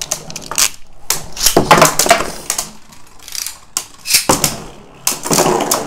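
Several Beyblade spinning tops clattering and colliding in a plastic stadium, with many sharp, irregular clacks.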